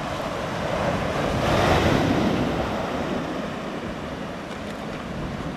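Ocean surf breaking and washing in among shoreline rocks. The rush swells to its loudest about two seconds in, then eases off.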